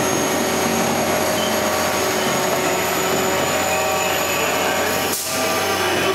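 Kirow railway crane running, a steady mechanical drone with several constant whining tones, dipping briefly a little after five seconds in.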